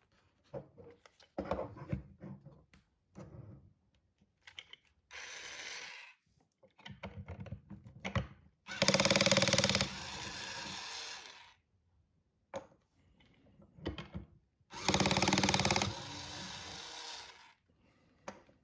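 Toy cordless screwdriver, Bosch-branded with an oversized plastic bit, whirring in two runs of about two and a half seconds each as it drives large plastic screws into plastic wheels. Short clicks and knocks of plastic parts being handled come between the runs.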